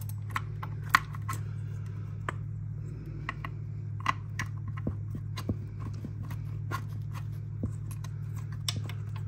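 Scattered light clicks, taps and scrapes of a battery cable being pushed and worked through an e-bike's frame tube, over a steady low hum.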